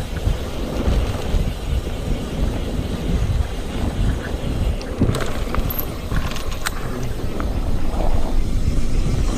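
Wind buffeting an action camera's microphone over the rumble of a mountain bike rolling fast along a dirt track, with a few sharp clicks about halfway through.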